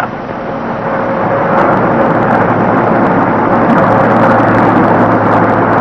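Motor vehicle driving steadily, a constant engine and road noise with a low hum, building over the first second and then holding.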